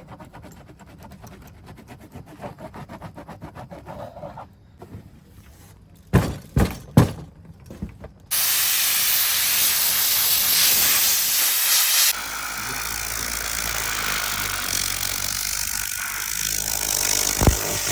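A few knocks, then a car-cleaning machine starts with a sudden loud, steady hiss. About four seconds later the hiss drops to a slightly quieter, steady level with a low hum beneath it.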